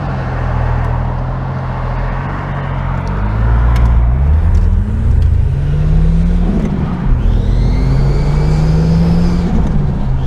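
Ford FG XR6 Turbo's turbocharged 4.0-litre inline six accelerating, its Varex valved muffler switched to the quiet setting so it sounds near stock. The engine note climbs, drops at a gear change about six and a half seconds in, then climbs again with a high whistle rising over it near the end.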